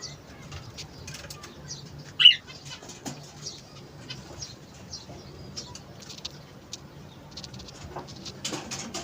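Ornamental cage birds chirping and calling, with one loud, sharp call about two seconds in, over a faint steady hum.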